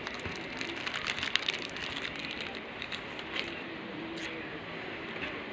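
Plastic packaging and wrapping paper crinkling as belts are handled, with a dense run of crackles about a second in.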